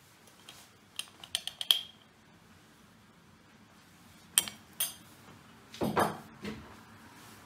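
Kitchen ware clinking and knocking on the counter: a quick cluster of sharp clinks about a second in, one of them ringing briefly, two more clicks past the middle, and a few duller knocks near the end.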